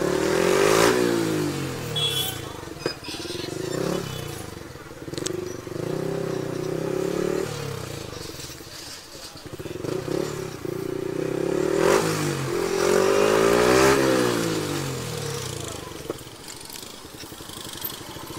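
Motorcycle engine running at low speed, its revs rising and falling with the throttle, loudest about a second in and again between about twelve and fifteen seconds in.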